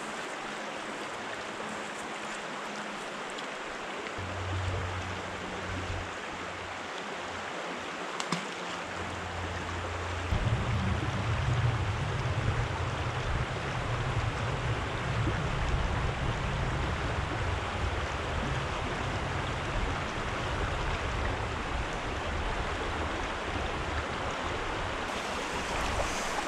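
Steady rush of a flowing creek running over a shallow riffle. Low background music comes in underneath about four seconds in and grows fuller about ten seconds in.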